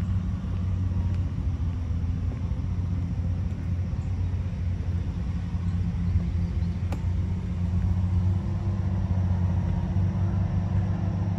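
Steady low drone of road-widening construction machinery, its engines running at an even pitch without letting up.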